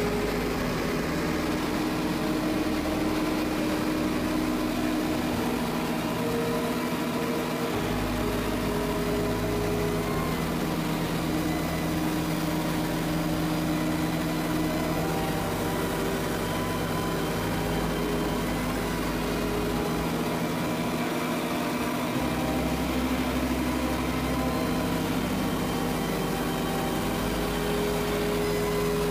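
Cessna 180 floatplane's piston engine and propeller droning steadily in cruise flight, heard from inside the cabin.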